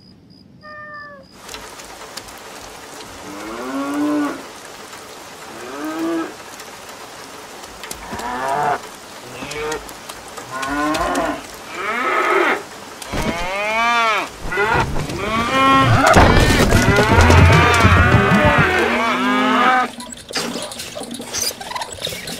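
Cows mooing. Single moos that rise and fall in pitch come about every two seconds, then pile up into several overlapping moos that grow louder. They stop suddenly near the end.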